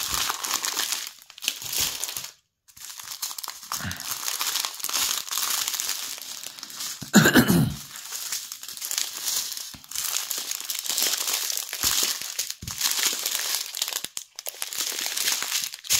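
Small plastic zip bags of diamond painting drills crinkling as they are picked up and handled, a continuous rustle with brief pauses and one louder burst about halfway through.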